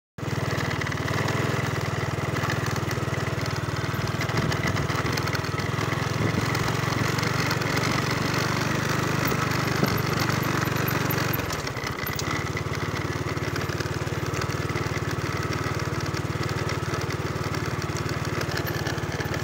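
Motorcycle engine running steadily while ridden along a dirt footpath, its level dipping briefly about twelve seconds in before picking up again.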